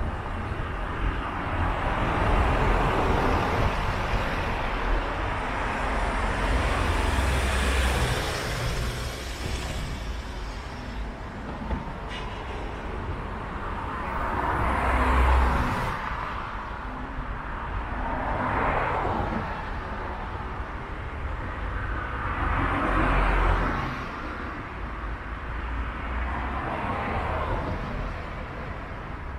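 Road traffic: about six vehicles pass one after another, each a swell of tyre and engine noise that rises and fades, over a steady low rumble.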